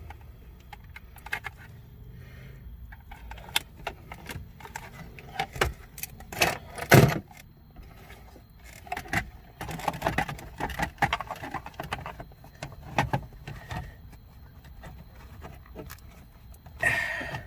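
Scattered clicks, rattles and light knocks of car interior trim and small parts being handled and fitted back in place, with one sharper knock about seven seconds in.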